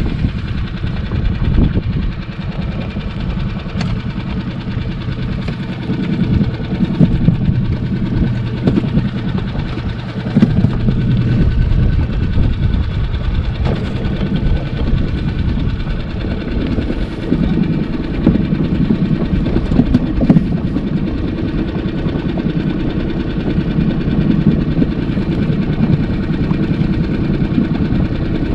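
Wind buffeting the microphone: a loud, steady low rumble that rises and falls irregularly.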